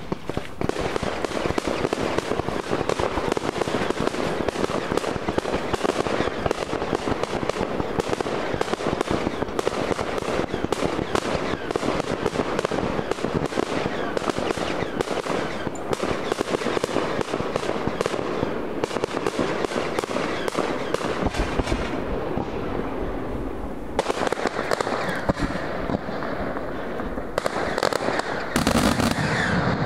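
Fireworks display going off in a dense, rapid string of bangs and crackles with hardly a gap.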